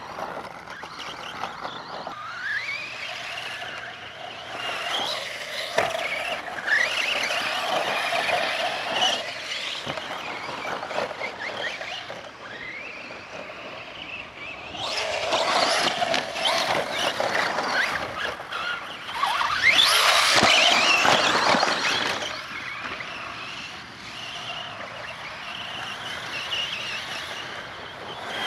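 Electric RC trucks (a Traxxas Slash 4x4 and an Associated RC10T4.1) racing on dirt: the high whine of their motors repeatedly rises and falls as they accelerate and slow, with a noisy scrabble mixed in. It is loudest about halfway through and again about two-thirds of the way in.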